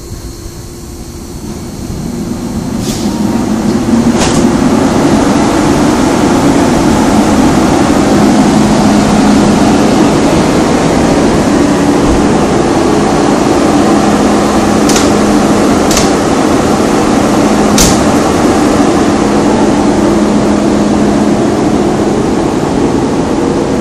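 Korail electric locomotive No. 8501 powering up with its main circuit breaker closed: the machinery winds up over the first few seconds into a loud, steady whir with a low hum. A few sharp clicks come through it, two about three and four seconds in and three more later on.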